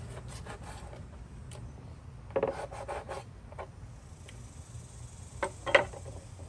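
A cleaver cutting through raw stingray wing on a plastic cutting board: short cutting strokes, a quick run of them about two and a half seconds in and two sharper ones near the end.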